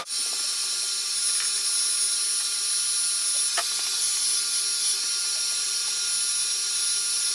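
Hot-air blower running steadily on its low setting, a whooshing hiss with a high whine, heating the screen glass's black border to soften its adhesive. Two faint clicks sound about a second and a half and three and a half seconds in.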